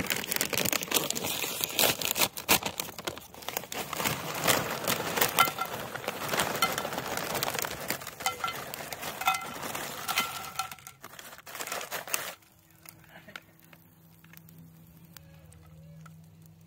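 Plastic tortilla-chip bag crinkling as chips are shaken out of it into a frying pan, a dense run of rustles and crackles that stops abruptly about three-quarters of the way through, leaving only a faint low hum.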